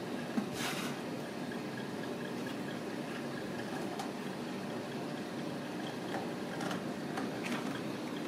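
A steady mechanical hum, with a few brief scratching sounds of kittens' claws on the carpeted cat-tree ramp, once about half a second in and twice near the end.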